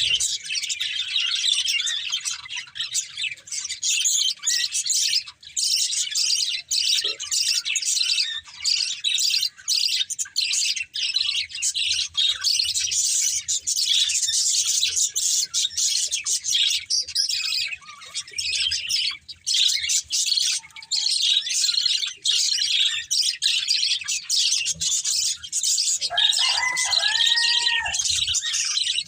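A flock of pet budgerigars chirping and twittering non-stop, a dense run of quick, high chirps. Near the end, one lower call rises and then falls.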